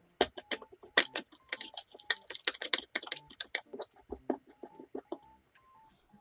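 Rapid, irregular clicks and taps of hands and utensils at kitchen work, several a second, thinning out near the end.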